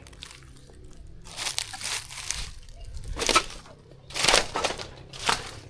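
Footsteps crunching through dry litter and debris, four or five irregular crunches.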